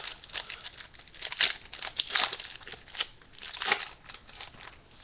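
Foil trading-card booster pack wrapper crinkling and tearing as it is opened by hand: a run of irregular crackles that dies down about four seconds in.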